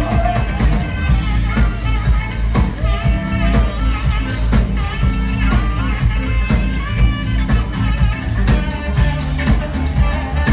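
Live rock band playing loud and amplified: electric guitar, bass guitar, drums and saxophone over a steady beat.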